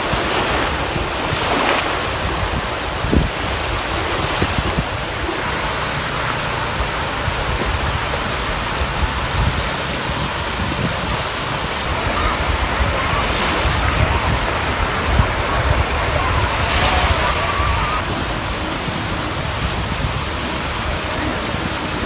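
Small waves washing onto a sandy beach in a steady wash, with wind buffeting the microphone.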